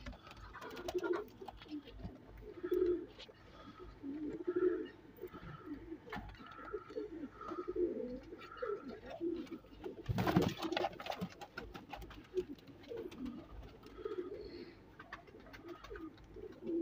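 Several domestic fancy pigeons cooing softly and repeatedly, with one short louder rustle about ten seconds in.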